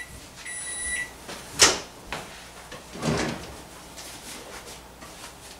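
A microwave oven sounding its end-of-cooking beep, a long steady tone that stops about a second in. Then comes a sharp knock, and about three seconds in a kitchen drawer thuds as it is pulled open.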